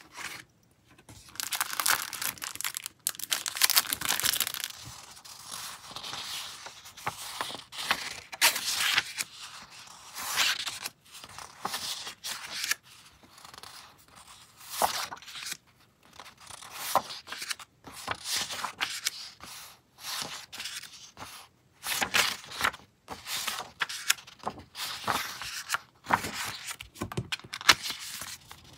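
Sheets of thin printed craft paper handled by hand, rustling and sliding against each other and the table in irregular bursts with brief pauses between them.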